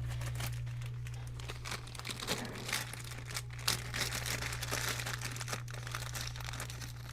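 Irregular rustling and small plastic clicks from hands handling laptop parts and screws, over a steady low hum.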